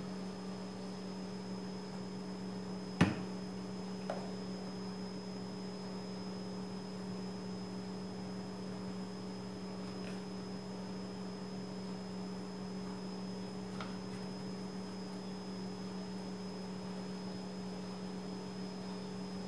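Steady electrical hum, with one sharp click about three seconds in and a fainter one a second later.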